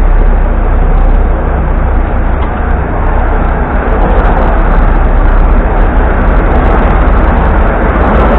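Steady low rumble of street traffic and idling vehicles, heard from the open driver's platform of a stopped tram.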